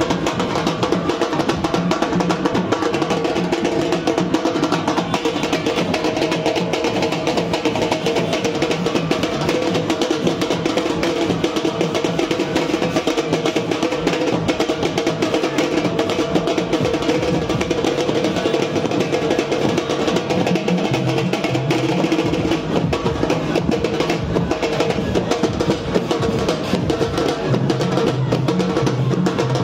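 Music with fast, continuous drumming, a dense run of rapid strokes over steady sustained tones, keeping an even loudness throughout.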